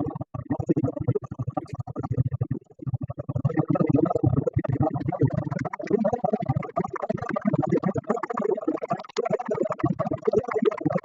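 Indistinct human voices going on steadily, with brief dropouts and no clear words.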